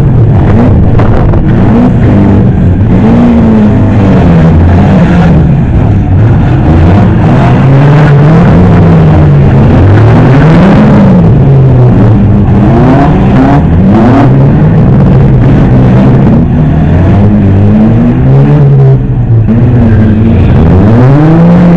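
Engines of several battered junk-rally race cars revving and idling together, loud, their pitch climbing and dropping again and again.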